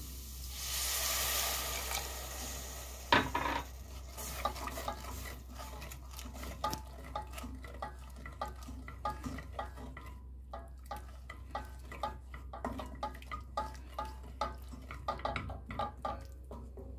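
Food sizzling in a pot for about two seconds, then a sharp knock, then a utensil stirring and scraping in the pot, clicking against its sides over and over.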